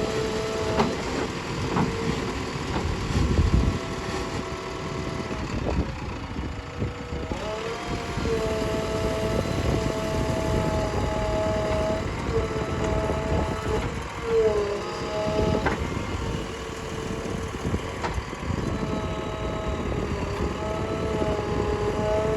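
Heavy diesel machinery running steadily, with two held high tones over it that break off and come back several times.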